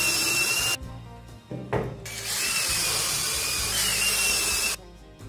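Cordless drill driving a pocket-hole screw into a wooden desk frame. The motor whines for under a second, stops, then runs again for nearly three seconds, dropping slightly in pitch as the screw seats, before stopping near the end.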